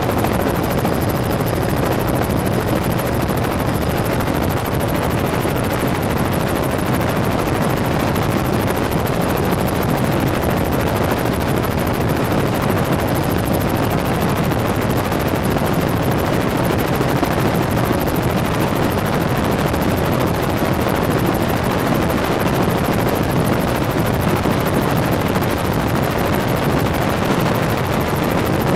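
Tour helicopter's engine and rotors running steadily in flight, heard as a loud, unchanging roar of noise with a faint steady whine.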